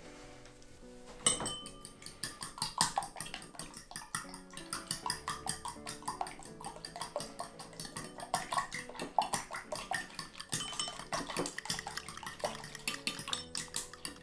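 Metal fork beating egg in a ceramic bowl, the tines clinking quickly against the bowl at about four strokes a second, starting a little over a second in, with soft background music under it.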